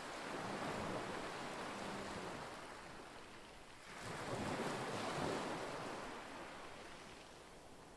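Lake waves washing against the shore, with wind on the microphone; the rush swells twice and fades toward the end.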